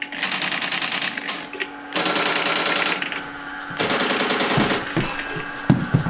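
Strowger step-by-step switches in an electromechanical telephone exchange clattering as they step to pulse-dialled digits. Three bursts of rapid, even clicking at about ten a second, one per dial pulse.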